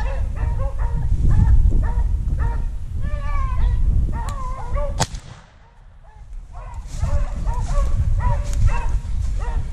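Pack of beagles baying on a rabbit's trail, with a single sharp shotgun shot about five seconds in. The baying drops away briefly after the shot, then starts up again.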